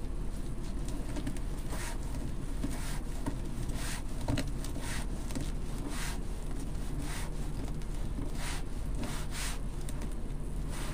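Deco mesh being handled and pushed onto a wreath frame: a string of soft rustles roughly a second apart over a steady low hum.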